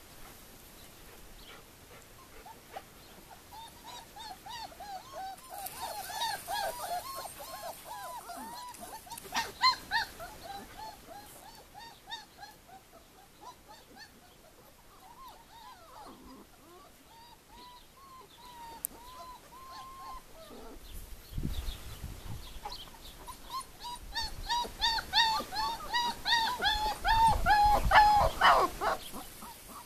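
Dogs whimpering and whining: long strings of short, high squeaky whines, quick one after another. They go on for most of the first two-thirds, pause briefly, and come back louder near the end.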